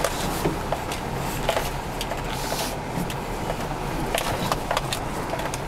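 Four-wheel-drive vehicle driving over a rough, rutted dirt track, heard from inside the cab: a steady engine and road noise with frequent knocks and rattles as the body jolts over the ruts.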